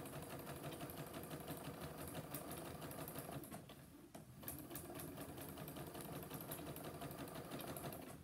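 Janome MC10000 sewing machine running, its needle stitching a lengthened top stitch in a fast, even chatter; it eases off briefly about four seconds in, then picks up again.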